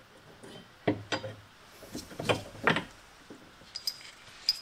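Metal suspension parts and tools knocking and clinking together as they are handled and fitted on a car's front suspension: a few sharp knocks about a second in and again a little after two seconds, then lighter clicks with a brief metallic ring near the end.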